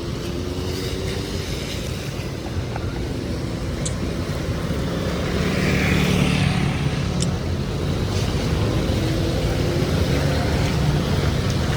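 Motor vehicle engine running close by, its hum growing louder from about five seconds in, over a steady wash of rain and street noise.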